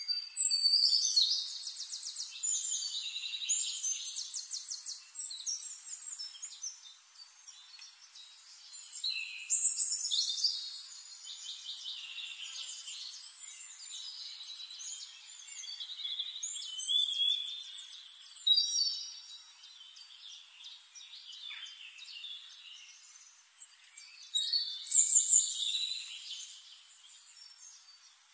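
Songbird singing in four loud bouts of rapid, high trilled notes, with fainter chirps in between.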